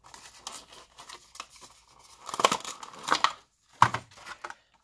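Cardboard toy box and the plastic packaging inside it being torn open and crinkled by hand, in a series of short, irregular rips and rustles with brief pauses between them.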